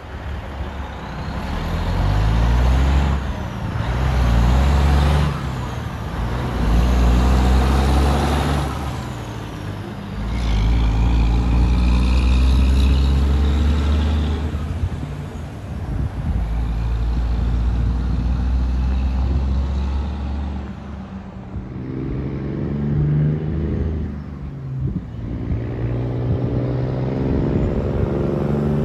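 Straight-piped diesel dump truck engines: a loud exhaust note that rises and drops in steps as the truck pulls through its gears, with a brief high squeal about ten seconds in. Near the end another truck's engine is heard coming closer.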